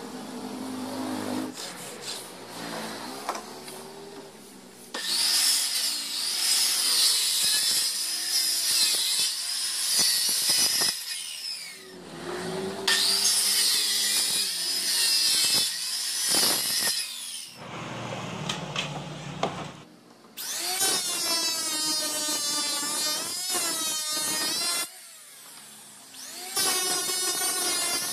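A corded circular saw cutting through wooden boards in two cuts of several seconds each, then an electric hand planer shaving a wooden board in two passes, its motor giving a pitched whine.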